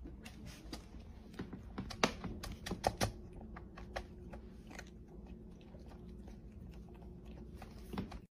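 Cat eating dry kibble from a bowl: irregular crunching and clicking of the pellets, thickest about two to three seconds in and thinning out after.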